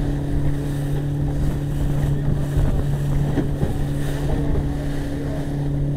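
Small motorboat's engine running at a steady pitch under way, with water rush and wind buffeting the microphone.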